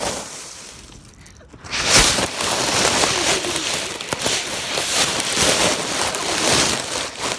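Dry leaves rustling and crunching right against a buried phone's microphone as someone digs through a leaf pile, quieter at first and then loud and continuous from about two seconds in.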